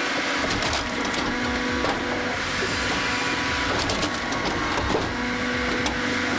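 Posch Spaltfix S350 firewood processor running: a steady machine drone with a faint hum and scattered cracks and knocks of wood being cut and split.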